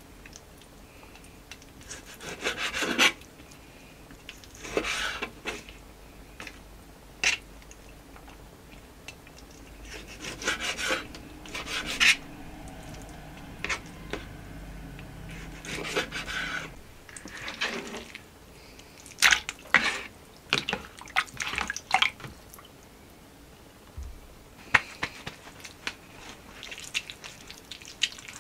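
Kitchen knife trimming and slicing raw chicken hearts on a plastic cutting mat: scattered cuts, scrapes and knocks of the blade on the board, with wet sounds from the meat. Near the end, kitchen paper is pressed around the hearts to blot off the water.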